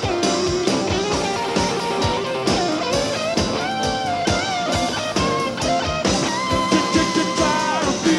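Live rock band playing an instrumental break: electric guitar lead with bent notes over a steady drum beat and band backing.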